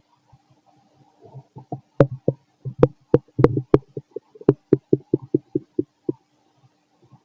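A man's stomach and bowels gurgling while digesting: a quick run of sharp bubbling pops, about four to five a second, lasting about four seconds from a second and a half in.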